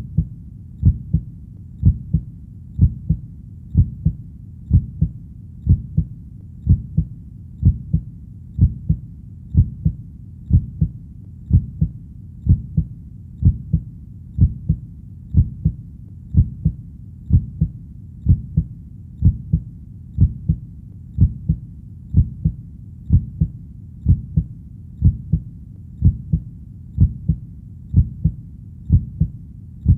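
Heartbeat, a steady deep lub-dub double beat about once a second, over a low steady rumble between the beats.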